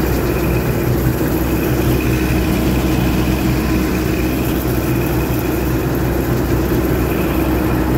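Massey Ferguson 86 combine harvester's engine running steadily, heard from the cab: an even drone with a constant higher tone over it.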